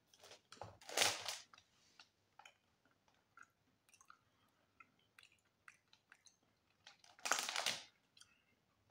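Someone chewing a piece of chocolate Easter egg: scattered small mouth clicks, with two louder noisy bursts, about a second in and again near the end.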